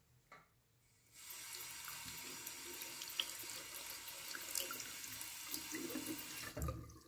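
Tap water running into a fine metal strainer and onto a plant sprig over a sink, turned on about a second in and shut off near the end with a low thud.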